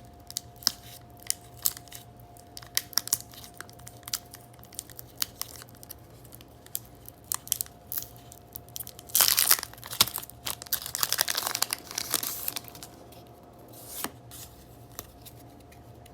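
Pokémon card booster pack wrapper crinkling and crackling in the hands, then torn open in two loud rips, the first about nine seconds in and a longer one just after.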